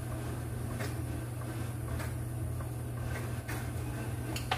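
Steady low hum of kitchen room tone with a few faint light taps while cooking oil is poured from a bottle into a steel pot; no sizzling.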